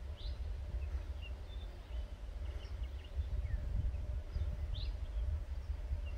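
A low rumble and a faint steady hum from Transnet class 18E electric locomotives approaching in the distance. Scattered bird chirps sound over it.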